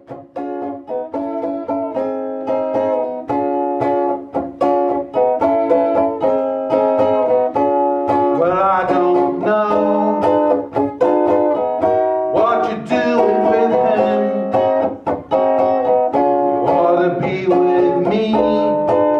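Live acoustic music: a plucked string instrument playing a steady, evenly picked accompaniment, with a voice singing three short phrases over it partway through.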